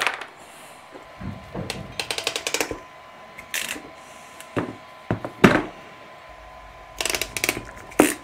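Ratcheting crimping tool clicking in quick runs as ring terminals are crimped onto 10-gauge battery cable. There is a sharp snip of wire cutters at the start, and a few single knocks of tools being handled.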